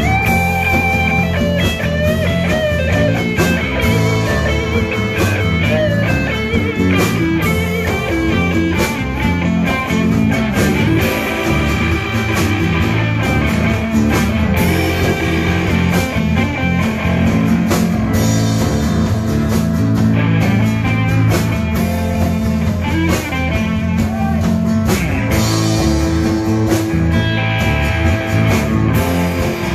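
Live rock band playing an instrumental passage: an electric guitar lead line over bass, drum kit and acoustic guitar.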